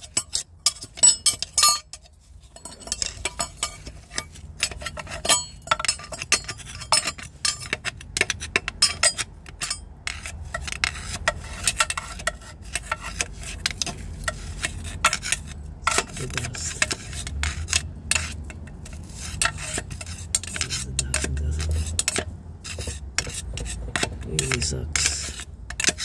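A metal tool scraping and tapping inside a gearbox bell housing, in many short irregular scrapes and clinks, as caked clutch lining dust is cleaned out around the release fork.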